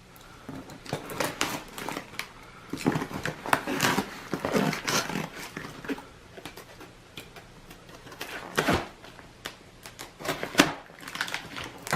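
Packing tape being pulled and torn off a cardboard shipping box, in irregular rips and scrapes with cardboard rustling between them.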